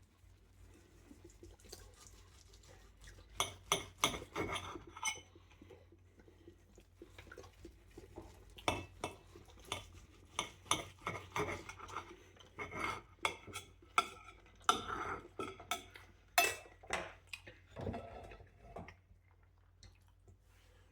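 A knife clinking and scraping against a dish while slicing cooked beef brisket: an irregular run of sharp clicks and scrapes, loudest about four seconds in and again around sixteen seconds.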